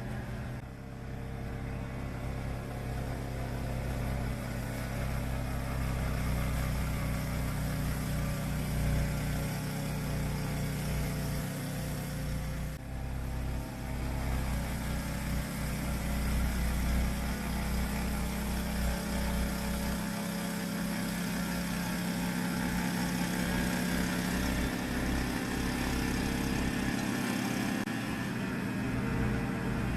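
Yamaha YT-1070 crawler snowblower running, its engine note steady with a few small shifts in pitch.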